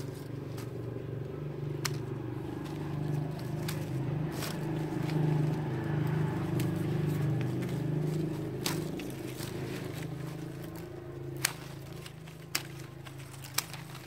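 Hand pruning shears snipping through green tea branches, sharp single clicks every second or two, the loudest three near the end. Under them a low drone swells in the middle and fades away.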